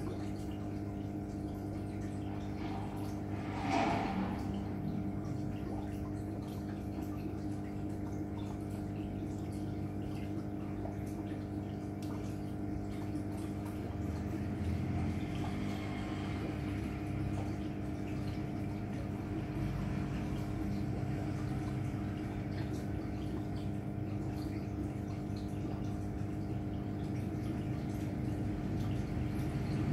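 Aquarium pump and filter humming steadily, with water trickling and dripping, and one brief louder noise about four seconds in.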